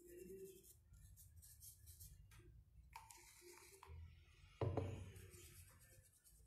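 Quiet handling noises of painting at a table: a brush working paint and paint pots being moved, with one sharp knock a little over halfway through as a pot or bottle is set down.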